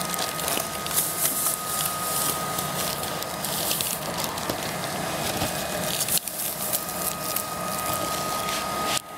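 Protective release film being peeled off the self-adhesive bitumen underside of an EPDM joint tape while the tape is pressed onto the wall by hand, crackling and rustling irregularly over a steady background hiss with a thin constant whine.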